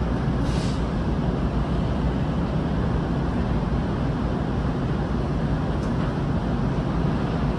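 Steady low rumble and hiss of a berthed car ferry's running machinery heard from the quay, with wind on the microphone; a brief brighter hiss about half a second in.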